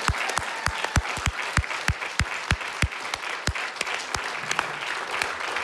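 Audience applauding. One person's claps, close by, stand out at about three a second and thin out after about three and a half seconds.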